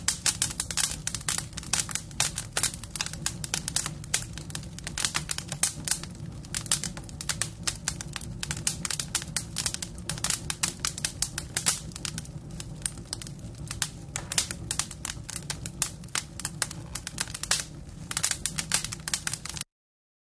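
Dense, irregular crackling clicks over a steady low rumble, stopping abruptly near the end.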